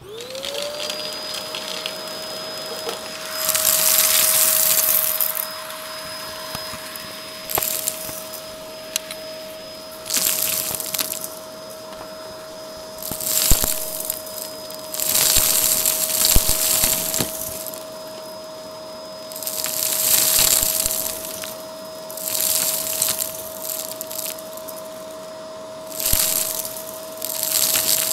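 Shark Navigator vacuum switched on, its motor spinning up into a steady whine. Over the whine come about nine loud bursts of crunching and rattling, a few seconds apart, as it sucks up rubber bands, small plastic discs and dry seed-like bits.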